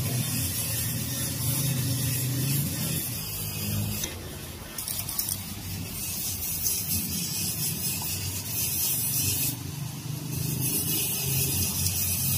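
Steady workshop background noise: a hiss over a low hum. The hiss drops away briefly twice, about four seconds in and again near ten seconds.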